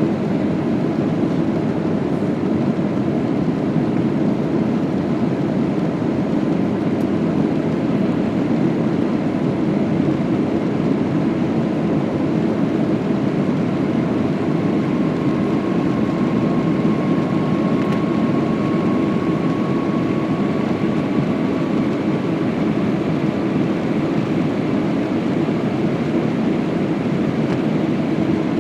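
Steady rushing noise inside an Airbus A319 airliner cabin, from the engines and airflow. A faint high whine comes in about halfway through.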